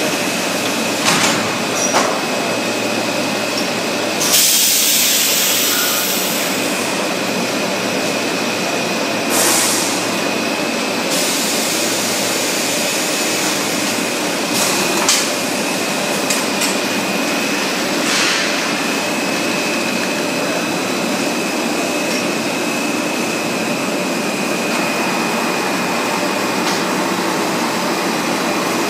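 High-speed stretch film production line and its roll winder running: a continuous machine noise with a steady high whine, broken by two short hissing bursts about four and nine seconds in and a few sharp clicks.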